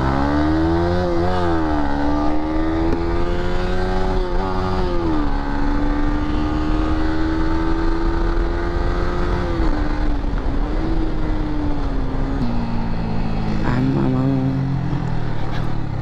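Bajaj Pulsar NS200 single-cylinder motorcycle engine pulling away: the revs climb and drop twice in the first five seconds as it shifts up, then it holds a steady cruise, and it eases off to lower revs after about ten seconds.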